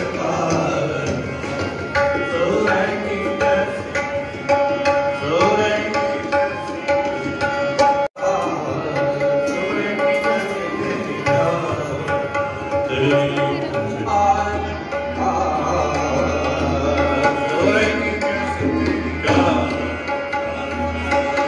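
Sikh devotional music (kirtan) with tabla drumming under a melody of held notes. It cuts out for an instant about eight seconds in.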